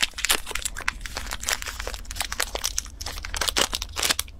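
Thin plastic wrapper of an individually packed sachima crinkling as it is torn open and peeled off the bar, with many irregular crackles.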